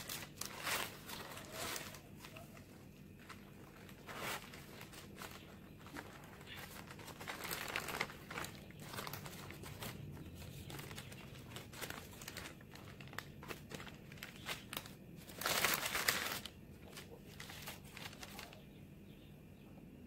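Baking paper crinkling and rustling as it is unrolled and peeled off a rolled sponge cake, in irregular bursts, the loudest a bit past three-quarters of the way through.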